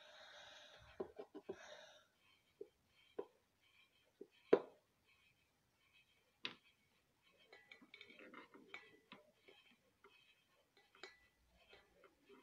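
Quiet room with a soft breathy hiss for the first two seconds, then scattered faint clicks and knocks, the sharpest about four and a half seconds in.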